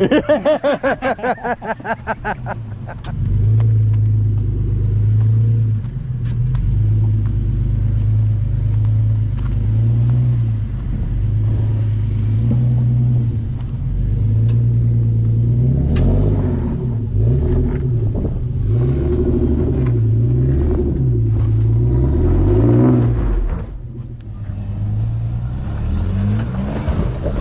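Toyota FJ Cruiser's 4.0-litre V6 engine running at low revs as the 4WD crawls through deep ruts. In the second half the engine speed rises and falls repeatedly as the throttle is worked.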